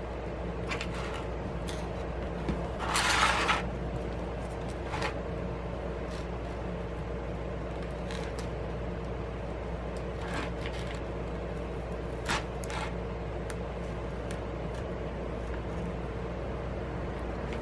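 Light handling noises of a tablet and a small prying or cutting tool on a tabletop: scattered soft clicks and taps, with a louder scrape about three seconds in, over a steady low room hum.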